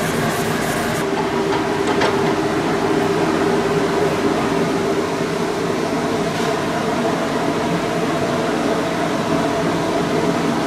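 Woodworking-shop machinery running steadily: a constant drone with a low hum. In the first second, short rubbing strokes against the wooden blank turning on the lathe.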